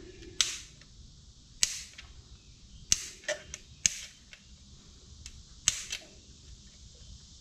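Sharp plastic clicks and taps, about seven spread irregularly, from a hand-held RC car radio transmitter being handled and turned over.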